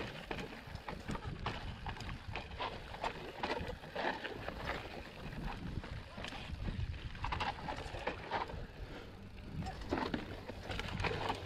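Specialized Epic mountain bike rolling slowly down a rocky dirt trail: tyres crunching over loose gravel and stones, with frequent clicks and rattles from the bike over a low rumble.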